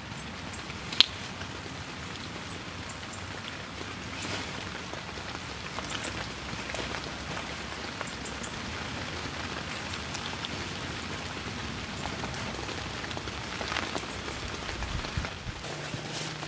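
Steady rain falling, with scattered drops pattering close by and one sharp tap about a second in.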